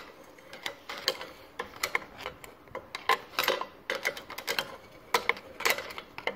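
A long metal rod worked around inside a corroded outboard gearcase, clicking and scraping against the metal parts inside in quick, irregular taps, with a few short scrapes.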